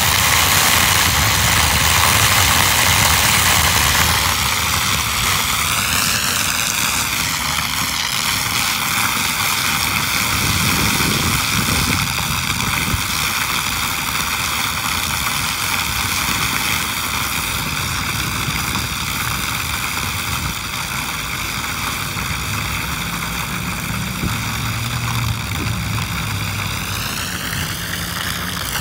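Rooftop water rushing and swirling down a roof drain that has just been cleared of a clump of leaves, a steady hollow whoosh with a low rumble underneath. Its tone sweeps up and down briefly about 5 seconds in and again near the end.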